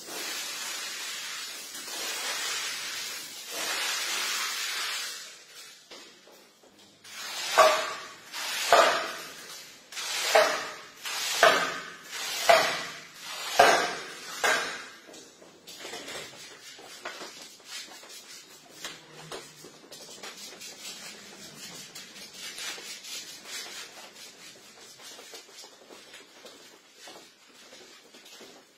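Liquid poured and splashing onto a wet shag rug as a steady hiss, then about eight quick swishing strokes of a floor squeegee, a second or so apart, pushing dirty water out of the carpet pile; after that only a faint crackle.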